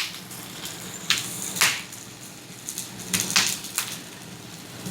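Tomatillos browning on a hot stove burner: a steady sizzling hiss broken by several sharp pops and crackles.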